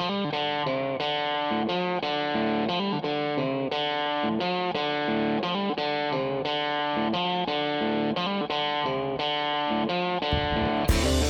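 Background music: a melodic electric guitar line played note by note, with a fuller band sound coming in near the end.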